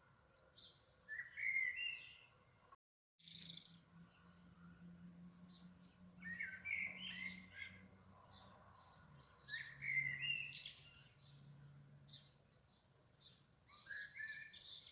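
Songbirds singing: short chirping and warbling phrases, repeated every few seconds. The sound cuts out completely for a moment about three seconds in.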